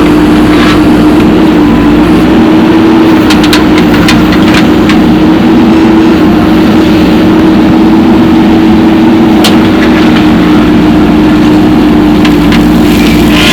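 Heavy diesel engine running steadily at a constant pitch, with a few short sharp knocks.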